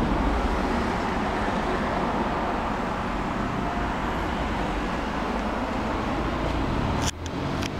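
Sliding landing doors of a Schindler hydraulic lift finishing their close with a soft thud, followed by steady noise with a low hum. A few clicks come about seven seconds in.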